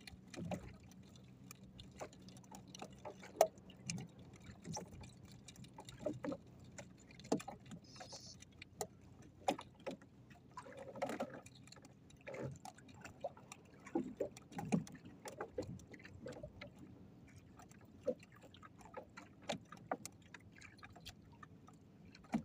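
Faint, irregular light clicks and knocks, with a low steady hum through the first half.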